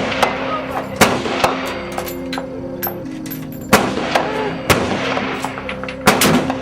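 A string of about six gunshots at uneven intervals, the loudest about four and six seconds in, over a steady low hum.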